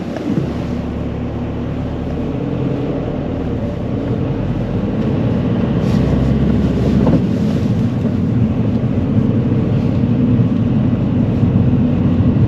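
Car engine and road noise heard from inside the cabin as the car pulls away and gathers speed, growing steadily louder.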